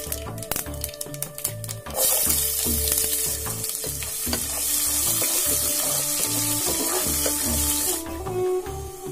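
Chopped red onion dropped into hot oil with tempering spices in a pot, starting a sudden loud sizzle about two seconds in that eases off near the end, with a wooden spatula stirring. Background music with a steady beat plays underneath.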